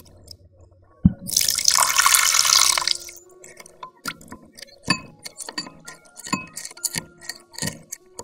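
A wooden spoon stirring a thin soy-sauce dressing in a small glass bowl. A knock about a second in is followed by a couple of seconds of liquid swishing. Then come repeated light clinks and taps of the spoon against the glass.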